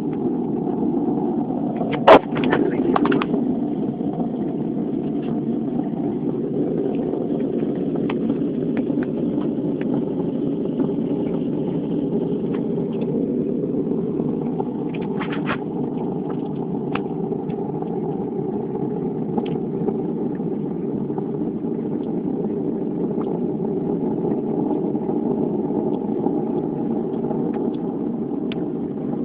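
A steady, low droning hum with a groaning tone that does not let up, presented as the unexplained 'strange sound' heard in the sky at night. A sharp loud click comes about two seconds in, and a few fainter ticks follow.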